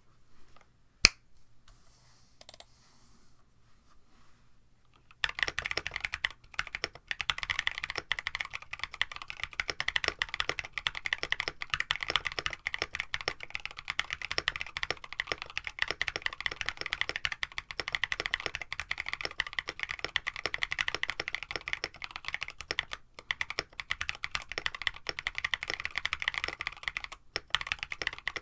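A sharp finger snap about a second in. Then, from about five seconds in, continuous fast typing on a KBD67 Lite mechanical keyboard fitted with stock, unlubed Banana Milk long-pole switches on an FR4 plate.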